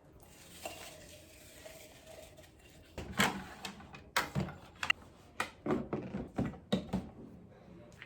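Light knocks and clicks of household objects being handled in a small room, a quick run of them starting about three seconds in.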